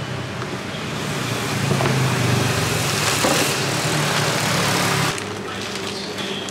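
Engine noise from passing road traffic, swelling about a second in and holding for several seconds before dropping off abruptly, with plastic-bag crinkling as the bag of pomegranate seeds is handled.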